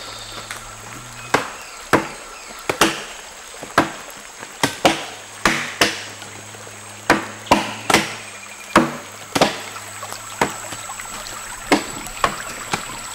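Wood chopping: around seventeen irregularly spaced, sharp blows of hand tools biting into a felled tree trunk as it is hewn into a dugout canoe, each strike ringing briefly.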